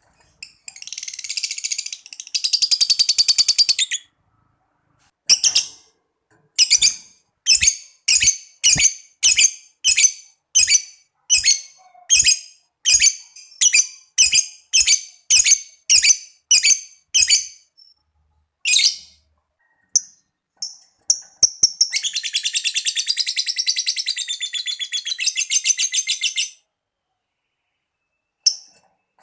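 Lovebird calling: a short burst of fast high chattering, then a long run of sharp single chirps about two a second, then, near the end, a continuous chattering trill of about five seconds, the long 'ngekek' prized by lovebird keepers.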